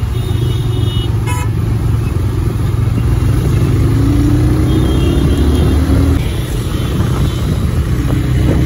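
Motorcycle riding through city traffic: heavy wind rumble on the microphone over the bike's engine, which rises slightly in pitch about four to six seconds in as it speeds up.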